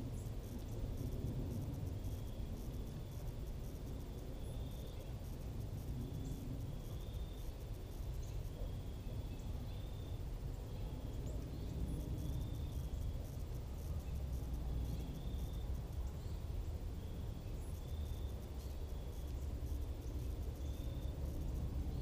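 Insects, cricket-like, chirping: a short high chirp at one steady pitch repeats every second or so, over a steady low rumble.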